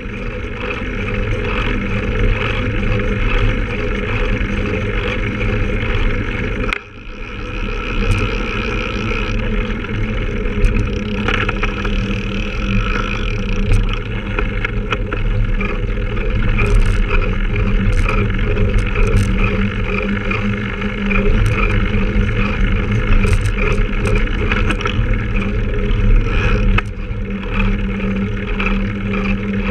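Steady wind and road noise on a bicycle-mounted action camera while riding, with a brief drop about seven seconds in.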